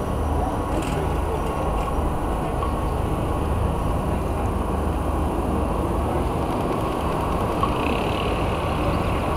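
Steady low rumble of city road traffic, including buses.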